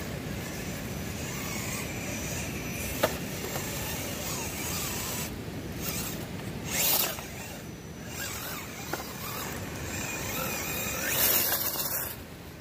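Scale RC rock crawler with a Tekin ROC412 brushless motor, climbing creek-side boulders: a faint motor whine with tyres scrabbling on rock in two louder bursts, about halfway through and near the end. A steady rush of creek water runs behind, and there is a sharp click about three seconds in.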